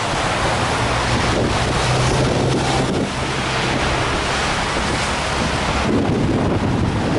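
Strong wind rushing and buffeting the microphone. A low steady hum sits under it for the first half and fades out.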